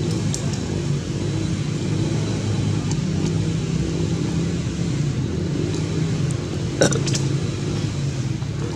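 Steady low rumble with no clear source, with a single sharp click about seven seconds in.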